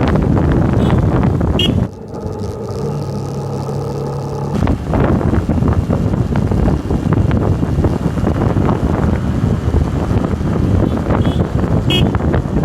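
Heavy wind buffeting on the microphone during a fast downhill ride. About two seconds in, the wind briefly eases for a few seconds and a vehicle engine's steady hum shows through.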